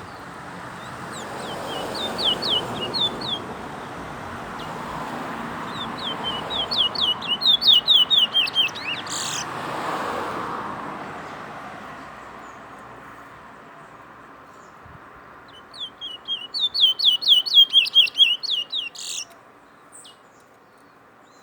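A towa-towa finch singing in three bursts, each a fast run of bright, falling notes that speeds up toward the end and finishes with a sharp note. A low rushing noise swells and fades behind the first two bursts.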